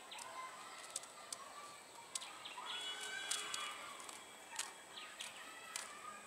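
Faint outdoor ambience of scattered bird chirps and short calls over a steady, thin high-pitched whine; the distant approaching train is not heard.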